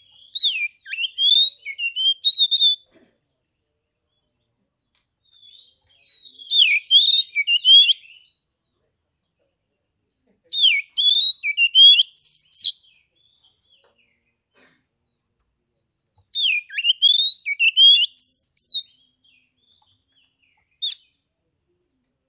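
Oriental magpie-robin (kacer) singing loudly in four bouts of quick, varied whistled phrases, each a few seconds long with pauses between, then a single short note near the end.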